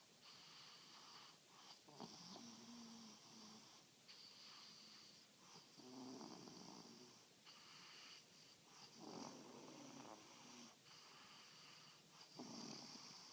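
Faint, slow snoring, one snore about every three to four seconds.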